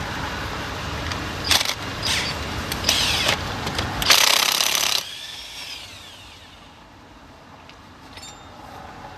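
Impact wrench loosening a car's lug nuts in four short bursts, the last and loudest lasting about a second.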